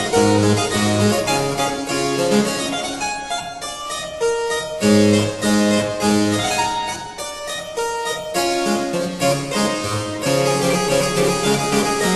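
Background music: a brisk keyboard piece of quick repeated notes over a bass line that drops out briefly twice.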